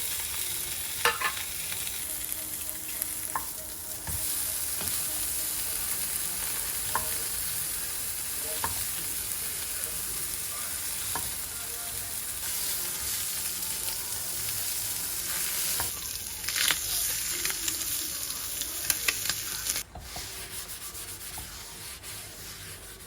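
Food sizzling as it fries in a pan, with a utensil stirring and knocking against the pan now and then. The sizzle cuts off suddenly about twenty seconds in.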